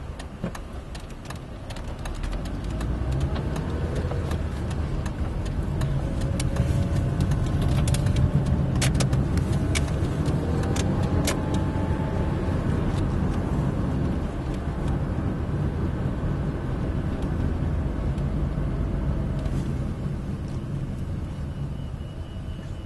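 Car engine and road noise heard from inside the cabin as the car pulls away, growing louder and climbing in pitch over the first several seconds, then holding steady while cruising and easing off near the end. A few sharp clicks come through in the first half.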